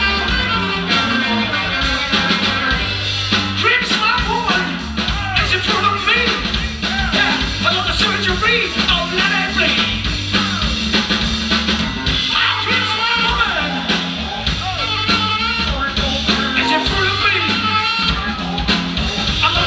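Live band playing: a steady bass line and drum kit under a lead melody that bends in pitch, picked up by an action camera's microphone.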